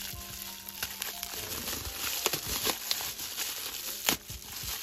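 Plastic bubble wrap crinkling and rustling as hands pull and work it loose from a taped package, with a few sharper crackles.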